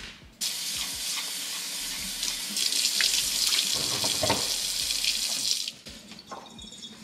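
Water running from a tap into a sink. It turns on about half a second in, gets louder after about two and a half seconds, and shuts off suddenly near six seconds.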